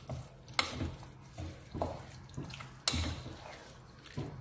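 Wooden spatula stirring wet mutton and herbs in a nonstick pot: the meat and its cooking liquid squelch and slosh, with irregular knocks of the spatula against the pot, the loudest nearly three seconds in.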